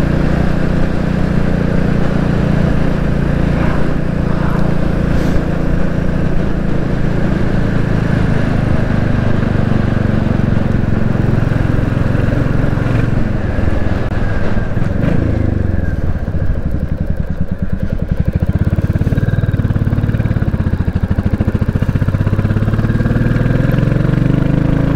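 Royal Enfield Classic 350's single-cylinder engine running steadily under way. About two-thirds of the way through the revs fall as the bike slows, then they climb again near the end as it picks up speed.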